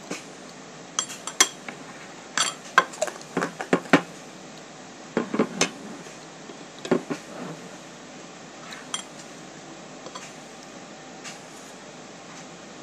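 Spoon and fork clinking and scraping against a plate: a quick run of sharp clinks over the first few seconds, then a few scattered ones.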